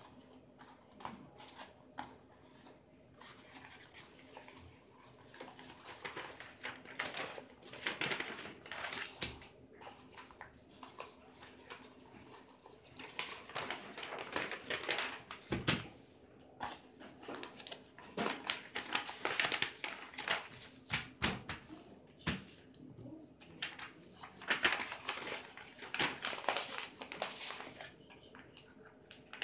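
Sheets of paper being handled and rolled into cones, rustling and crackling in several spells of a few seconds each, with a couple of soft knocks on the table.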